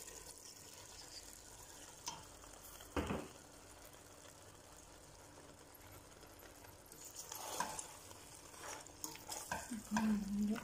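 Tomato sauce simmering in a steel pot with a faint steady sizzle, as dry macaroni is added. There are two knocks near 2 and 3 seconds, then from about 7 seconds a spatula stirs and scrapes the pasta through the sauce.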